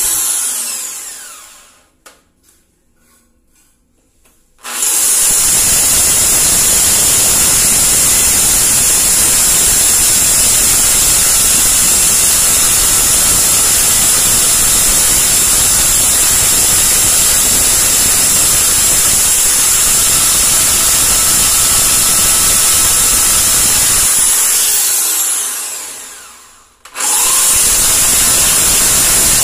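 Corded electric drill boring into ceramic wall tile, running at a steady high speed. It winds down and stops at the start, starts again about five seconds in and runs for about twenty seconds. Then it winds down once more and starts again sharply near the end.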